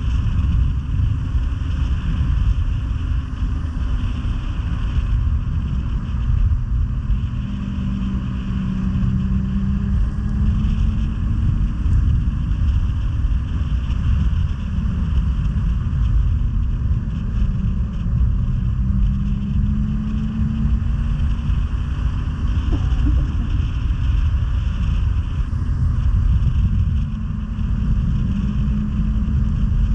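Snowmobile engine running steadily at trail speed under a heavy low rumble, its pitch drifting up and down a little with the throttle.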